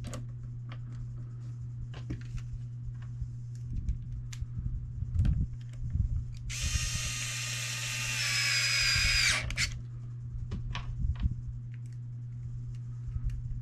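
A small electric motor whines for about three seconds in the middle, with light clicks and knocks of handling before and after it.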